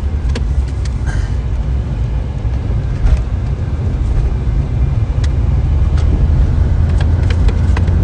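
A car driving, heard from inside the cabin: a steady low rumble of engine and road noise that grows a little louder after about five seconds, with a few light knocks and clicks.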